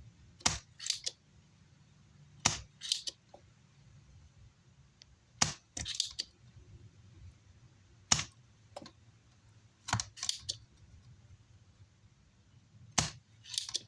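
Sharp clicks and snaps from a hand tool working on an amplifier circuit board, coming in clusters of two or three about every two to three seconds.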